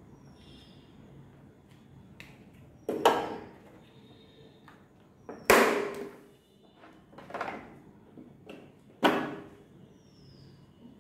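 Four sharp knocks about two seconds apart, each dying away quickly, with a few softer taps between them.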